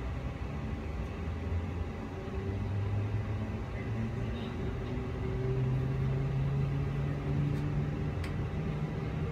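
Electric multiple unit's traction motors humming as the train pulls away and gains speed, heard from inside the carriage. The low hum steps up in pitch about halfway through, and the overall running noise grows louder.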